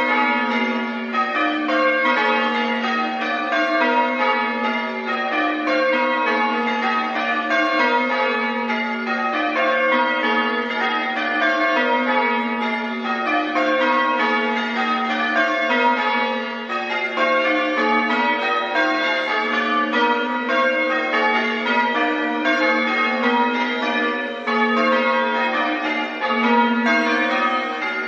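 Church tower bells being change-rung: a continuous stream of bell strokes in rows that each step down in pitch from the lightest bell to the heaviest, repeating without pause.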